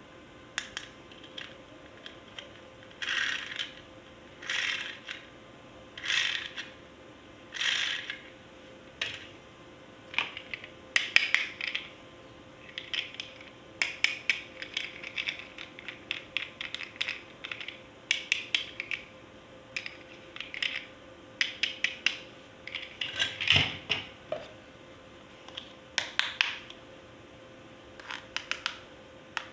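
Plastic toy parts being handled: about five short scrapes, then many quick clicks and rattles, like parts ratcheting and snapping together.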